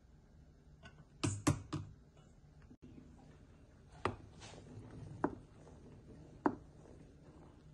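Sharp knocks of kitchen utensils against a stainless steel soup pot. A quick run of three or four comes about a second in, then three single knocks about a second apart as a wooden spoon stirs the thick blended soup.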